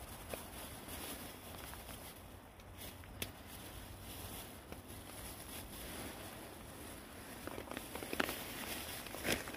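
Clear plastic bag rustling and crinkling as white cubes are shaken out of it onto kindling in a metal fire-box stove, with small light clicks as the pieces land, more of them near the end.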